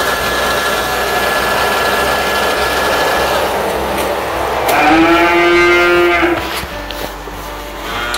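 A cow moos once, a loud drawn-out call of nearly two seconds starting about five seconds in. Before it there is a steady mechanical hiss and hum with a faint high whine, which stops around three seconds in.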